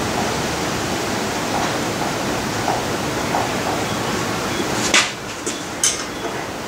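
Steady hiss of workshop background noise. A sharp click comes about five seconds in, after which the hiss drops a little, and a second click follows about a second later.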